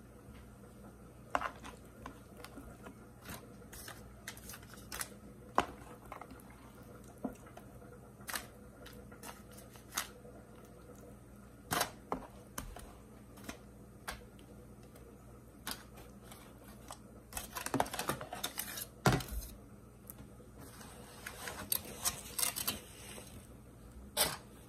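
Raw seasoned chicken wings being set by hand into a foil-lined aluminium pan: scattered soft taps and clicks with short bursts of crinkling foil, busiest about two-thirds of the way in and again near the end.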